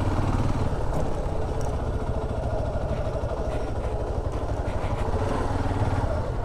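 Motorcycle engine running steadily at low revs as the bike creeps along at walking pace and pulls up.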